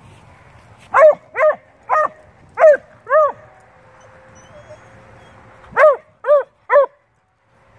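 Dog barking in play: a quick run of five short barks, then three more about two and a half seconds later.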